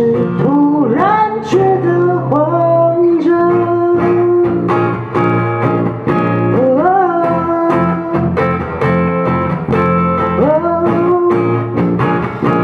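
Acoustic guitar being played with a voice singing over it, a song performed unplugged.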